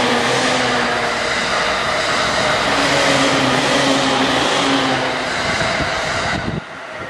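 JR East E231-series electric commuter train accelerating slowly as it passes, with rail and wheel noise over a steady hum from its roof air-conditioners and underfloor equipment. The sound falls away sharply near the end as the last car clears.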